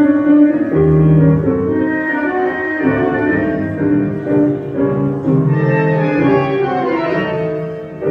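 Tango orchestra music, with bowed strings carrying a melody of long held notes over piano.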